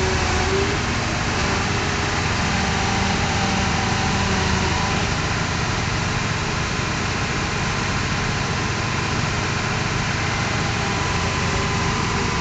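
Diesel engine of heavy construction machinery running steadily, with faint tones that shift now and then.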